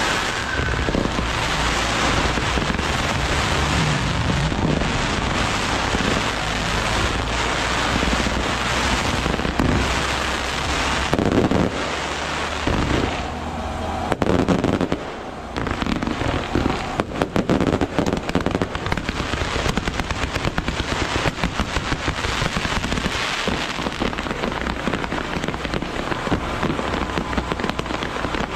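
Strings of firecrackers and fireworks going off in a continuous, dense crackle of pops. About halfway through it dips briefly, then comes back as rapid sharp cracks.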